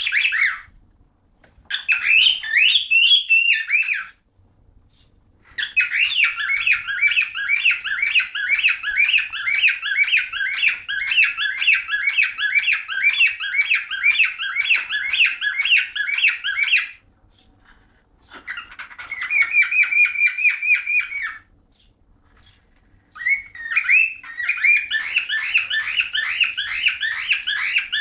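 Cockatiel courtship singing: bouts of whistled, warbling phrases with short pauses, including one long run of fast repeated notes about a third of the way in.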